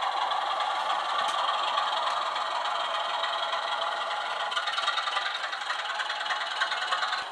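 00 gauge model train running on the layout's track: a steady rattle and clatter of the motor and wheels.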